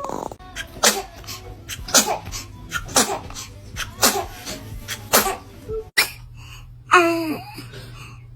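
A baby sneezing in short, sudden bursts, about once a second, five times. Near the end comes a short vocal sound that falls in pitch.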